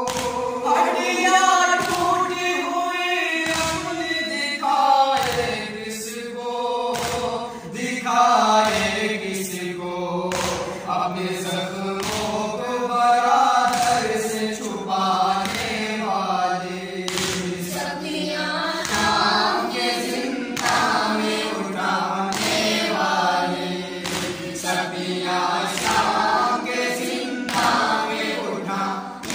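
Several male voices chanting a noha, a Shia mourning lament, in unison without instruments, with a sharp chest-beat (matam) about once a second keeping the rhythm.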